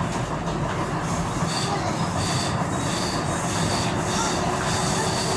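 Tyne and Wear Metro train running along the track, heard from inside the carriage: a steady rumble of wheels on rail. From about a second and a half in, a high wheel squeal comes and goes several times as the train takes a curve.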